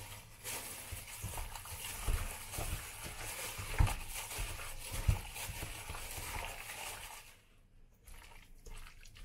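Chicken pieces being mixed by hand through a wet spice marinade in a stainless steel bowl: squishing and sloshing with a few soft knocks, pausing briefly near the end.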